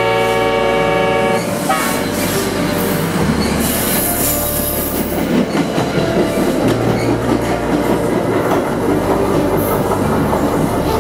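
A train horn sounds a steady note for about the first second and a half. Then comes the continuous rattle and clatter of a passing train's cars and wheels on the track.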